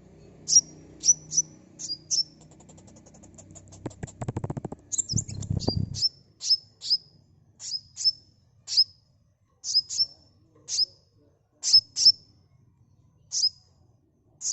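Sunbird calling: a run of short, sharp, high chirps that drop in pitch, about one or two a second, broken about four seconds in by a fast rattling trill.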